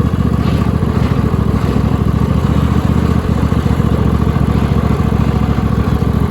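Cub Cadet garden tractor's 26 hp Briggs & Stratton V-twin engine running steadily as the tractor is driven.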